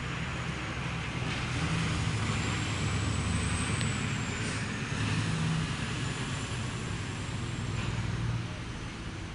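A motor vehicle's engine running, a steady low rumble that grows louder after about a second and a half and falls away near the end. A faint thin high whine rises and falls above it in the middle.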